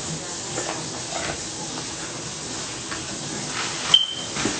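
Steady hiss, with a sharp click about four seconds in.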